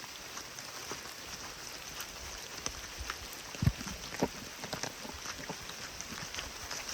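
Steady rain, with many sharp raindrop ticks hitting close to the microphone. A few dull low thumps come around the middle, the loudest about three and a half seconds in.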